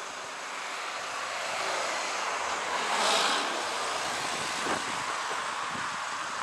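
Distant jet engines of a twin-engine airliner running on the runway: a steady rushing noise that grows louder, peaks about halfway through and then holds.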